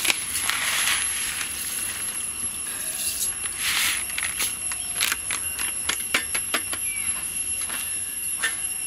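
Thin plastic food packet crinkling and rustling as roasted vermicelli is shaken out of it into a pot. There are soft rustles near the start and again about four seconds in, then a run of sharp crackles.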